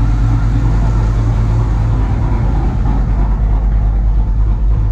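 Dodge Dakota engine idling steadily with its large electric radiator cooling fan running, a constant low hum under a rush of moving air.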